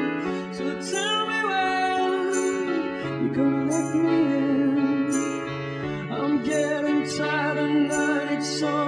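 A song plays: a singing voice over instruments, with a steady beat.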